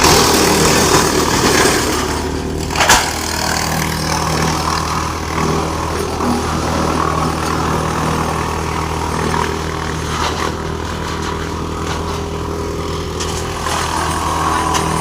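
Heavy wood chipper machine running, a steady low engine hum under a loud rush of noise, with one sharp crack about three seconds in.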